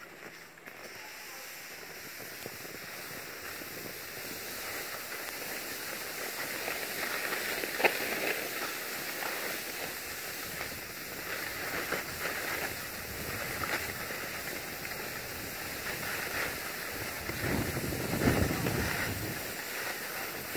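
Skis sliding and scraping over packed snow on a downhill run: a steady rushing hiss that builds over the first several seconds, with louder scrapes every few seconds.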